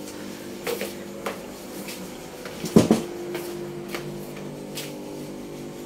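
Handling knocks and rubbing from a phone being moved around, with a loud double thump near the middle, over a steady low hum.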